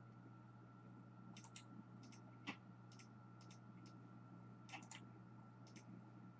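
Faint clicks of a computer mouse and keyboard, about a dozen scattered irregularly, some in quick pairs, over a faint steady hum: lists being copied and pasted into a spreadsheet.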